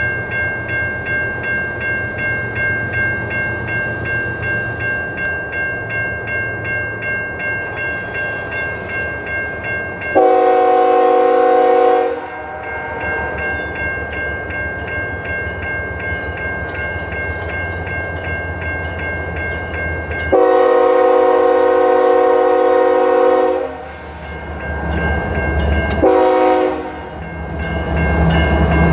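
GE ES44AC diesel locomotive's multi-chime air horn sounding the grade-crossing signal: two long blasts, a short one, then a long one. Under it, a crossing bell rings with a steady pulse, and the locomotive's engine rumble grows as it approaches.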